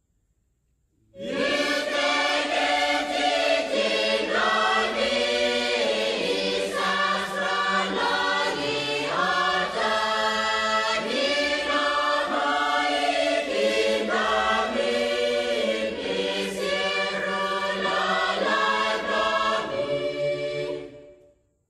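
Background music of a choir singing in several voices. It starts about a second in and ends shortly before the end.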